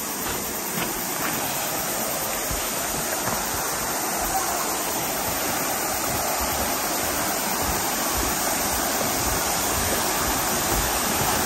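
Rushing river water: a steady wash of noise that grows slowly louder.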